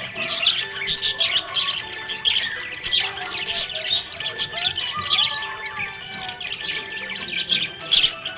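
Budgerigars chirping and warbling in a constant stream of quick, high chirps.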